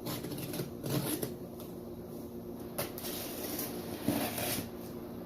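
A cardboard shipping box being opened by hand: irregular scratching and rustling of cardboard and packing material, with a few short knocks.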